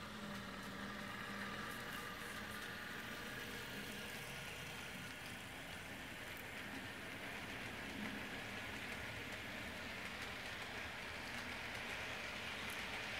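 Model freight train of refrigerator cars rolling past on the layout's track: a steady rushing hiss of small wheels on rails. A faint low hum at the start comes as the diesel locomotives pass.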